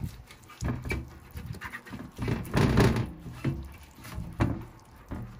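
Silicone pastry brush spreading olive oil across a non-stick baking tray, with scraping and rustling strokes and a few sharp knocks as the tray is handled over a steel sink. The longest and loudest scrape comes a little past halfway.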